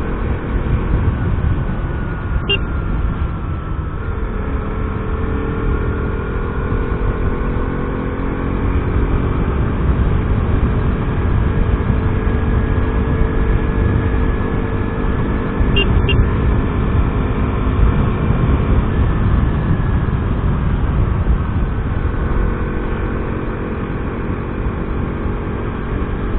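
Motorcycle engine running at a steady cruise, its pitch drifting gently up and down as the speed changes, under a heavy low rumble of wind on the microphone.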